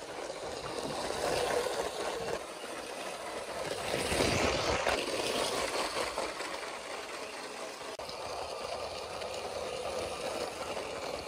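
Battery-powered LEGO City 60197 passenger train running on plastic track: the small electric motor and the wheels rattling over the track, louder twice as the cars pass close by.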